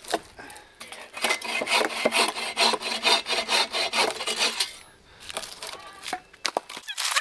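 Boreal 24 folding saw cutting through a dead branch in quick back-and-forth strokes. The sawing starts about a second in and stops a little past halfway as the piece comes free. A few separate knocks follow.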